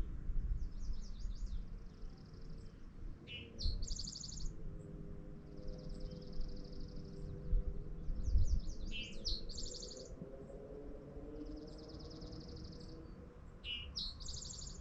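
A songbird sings the same song several times, a few quick high notes then a high, even trill. A low rumble of wind on the microphone runs underneath.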